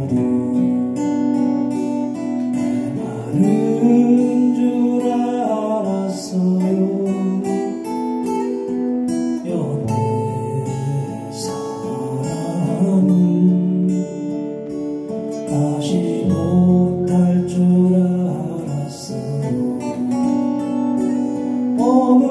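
Two acoustic guitars strummed and picked together, with sung vocals over the chords: a live acoustic duo performance.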